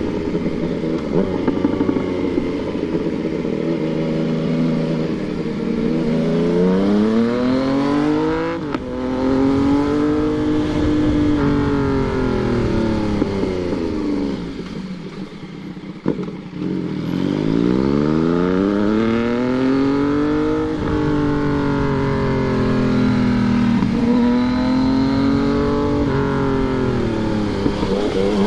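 Yamaha MT-09 inline-three engine pulling through the gears and slowing again several times, its pitch climbing under throttle and dropping sharply at each upshift. Around the middle the throttle closes and the engine falls quiet for a moment before a quick blip and it pulls away again.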